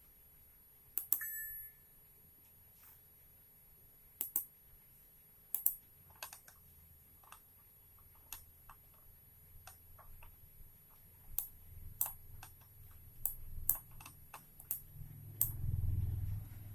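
Keys being pressed one at a time, giving sharp, irregularly spaced clicks, with a low rumble that starts near the end.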